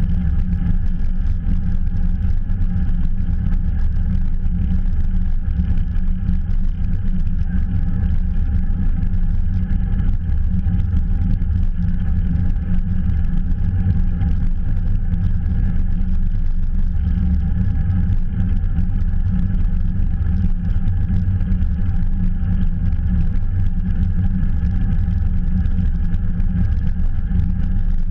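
Steady, loud wind rumble on a GoPro microphone from riding a bicycle along a road at speed.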